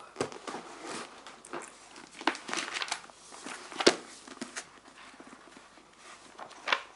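Thin pages of a paper telephone directory being flipped and riffled by hand: an irregular run of papery rustles and flaps, the sharpest about four seconds in.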